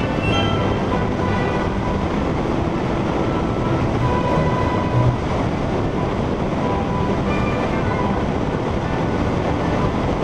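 Motorcycle riding at steady cruising speed on a paved road: steady rush of wind over the mounted camera's microphone, with engine and tyre noise underneath.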